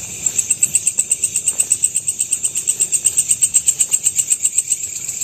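Cricket chirping in a rapid, even pulse, about nine high-pitched chirps a second, stopping near the end.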